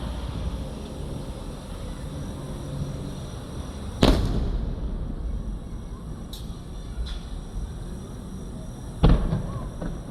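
Fireworks shells bursting: two sharp booms about five seconds apart, each trailing off in a rumble, with a couple of fainter pops between them.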